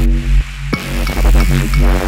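Background electronic music with a heavy, pulsing bass and a repeating beat.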